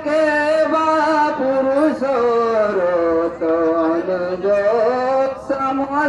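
A man singing a folk song into a microphone over a loudspeaker, in long held notes that slide and step down in pitch.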